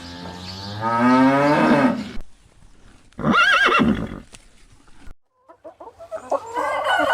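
A string of separate farm animal calls: a long, low call rising in pitch, then a shorter, higher call with a wavering pitch about three seconds in, and near the end a rooster starts to crow.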